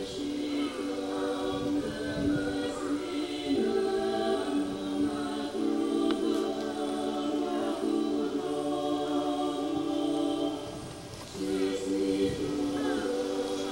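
A choir singing slow, held chords, several voices together on long sustained notes. A fuller chord swells in about three and a half seconds in, and the sound dips briefly near eleven seconds before the chords return.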